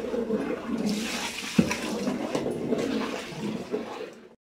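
Long metal ladle stirring wet masala with soya chunks in a large aluminium pot: continuous sloshing and scraping, with one sharp knock of the ladle on the pot about one and a half seconds in. It cuts off abruptly just before the end.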